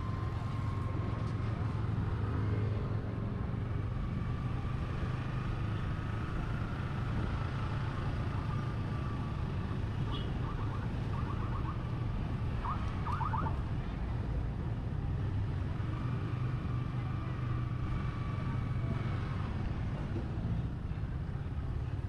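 Motorcycle running steadily on the road, with a constant low engine and road rumble and traffic around it. A little past the middle come two short runs of rapid chirping pulses.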